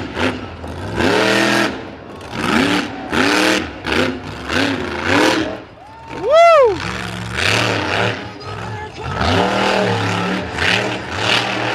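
Monster truck engine revving hard in repeated bursts during a freestyle run. About six seconds in, the revs shoot up and fall back in one sharp arc, the loudest moment, as the truck is airborne off a jump with its wheels unloaded.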